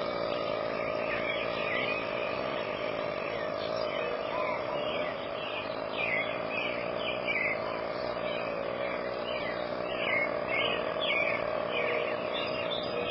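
One long, drawn-out belch held at a steady pitch, with a rapid rattling texture.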